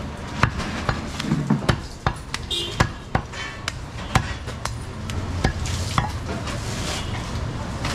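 Cleaver striking goat meat and bone on a wooden chopping block: sharp, irregular knocks about every half second to second, over a steady low background rumble.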